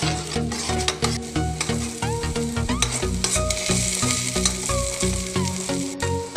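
Sliced onions and green peas sizzling as they fry in oil in a pan, stirred with a steel spoon that clicks and scrapes against the pan; the sizzle swells about halfway through. Background music with sustained notes plays underneath.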